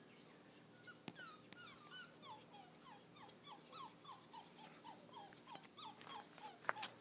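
Australian Cattle Dog (blue heeler) puppy whimpering faintly: a long string of short whines that fall in pitch, about four a second, starting about a second in. A few sharp clicks are heard among them.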